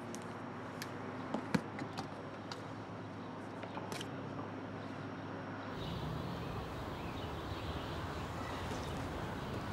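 Quiet car-interior ambience with a few small sharp clicks and taps as a small metal case is handled and opened. About six seconds in, it gives way to a steadier outdoor street ambience with a low rumble.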